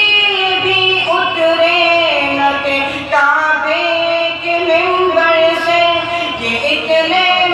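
A young man's solo voice chanting a devotional Islamic hymn into a microphone, drawing out long, ornamented, wavering notes with short breaths between phrases.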